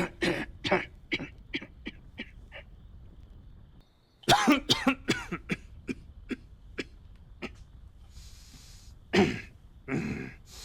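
A man's acted coughing fits: a run of short coughs that grow fainter, then after a brief break a second fit of coughs, a breathy rasp, and two heavier coughs near the end.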